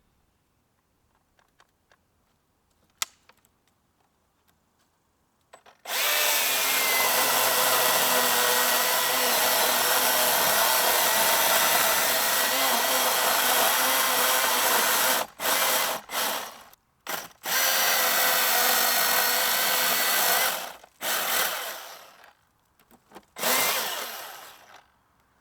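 Milwaukee M18 battery chainsaw cutting wood. It starts about six seconds in and runs steadily for about nine seconds, then comes in several shorter bursts with pauses between.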